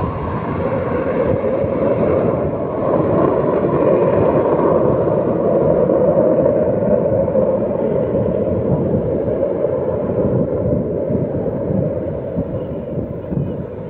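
Jet engine noise of a military fighter aircraft flying past, swelling to its loudest around the middle and fading away toward the end.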